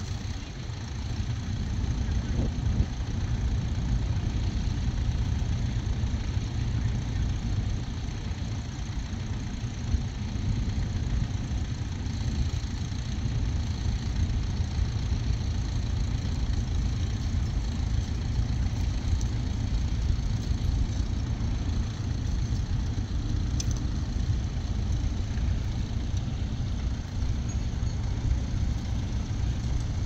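Ferguson tractor engine running steadily as it pulls a mounted plough through the soil.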